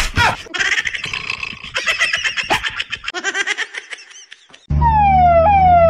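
Comic sound effects laid over the picture: a jumble of pitched cries and squeals for the first few seconds. Near the end, after a short lull, comes a loud tone that slides down in pitch again and again over a low hum, then cuts off suddenly.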